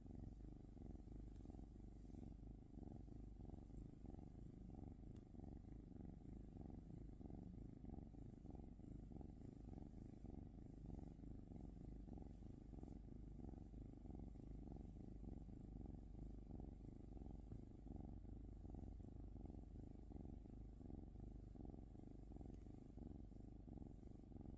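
Domestic cat, a Norwegian Forest cat, purring softly and steadily, with a low, gently pulsing rumble.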